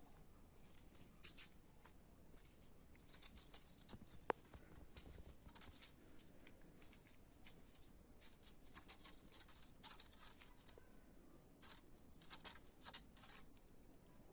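Faint, scattered rustling and small scratches and clicks from kittens clambering among the leafy branches of a pomegranate tree, with one sharper click about four seconds in.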